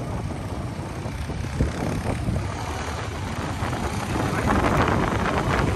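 Motorcycle on the move: engine and tyre noise mixed with wind buffeting the microphone, growing louder near the end.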